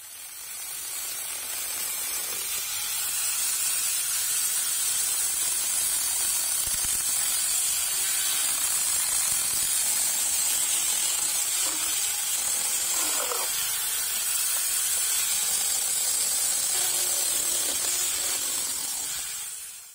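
Steady hissing noise with no engine tone or rhythm in it, fading in over the first two seconds and fading out at the end.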